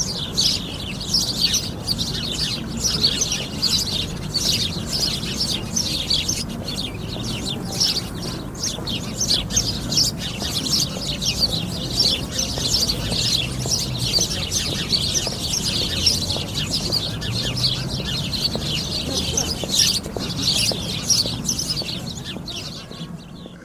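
A flock of sparrows chirping continuously, many short calls overlapping at once, thinning out near the end.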